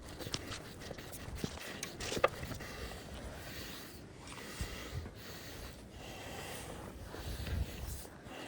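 Scuffs, knocks and footsteps of a hiker scrambling up rock, with a sharp knock a little over two seconds in.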